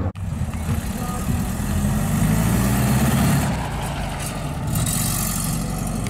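Classic Porsche 356's air-cooled flat-four engine running as the car drives slowly past and pulls away, its engine note strongest about two to three seconds in.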